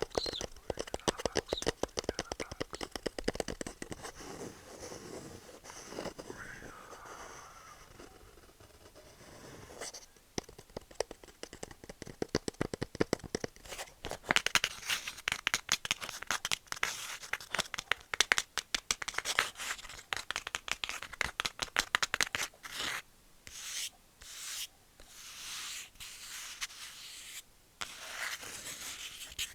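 Rapid tapping and scratching on wood, with crackly scraping strokes. There is a quieter patch early on, and it grows busier and brighter about halfway through.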